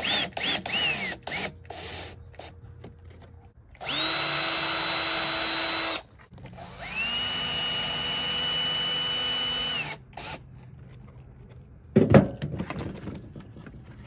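Cordless drill driving screws into the plastic screw holes of a switch panel, tapping threads as they go. It runs in separate trigger pulls: a couple of quick blips that wind down in pitch, a run of about two seconds, then a longer run of about three seconds at a slightly lower pitch. A short knock and clatter comes near the end.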